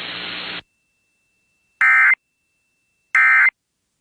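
NOAA Weather Radio static cutting off after a broadcast, then two short, warbling digital bursts of EAS/SAME data about a second apart: the end-of-message signal that closes the weekly test.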